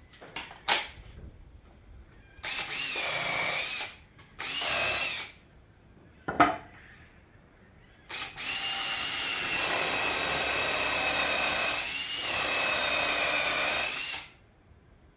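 Handheld power tool's motor run in three bursts, two short and then one of about six seconds, its whine sagging briefly in pitch under load and recovering. A sharp click comes between the second and third runs.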